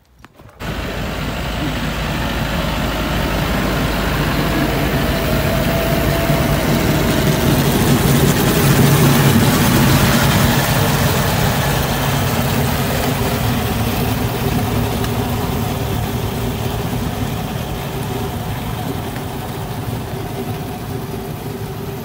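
Tractor engine running with its front-mounted snow blower throwing snow off the road. The noise comes in suddenly about half a second in, grows louder toward the middle, then slowly fades as the tractor moves away.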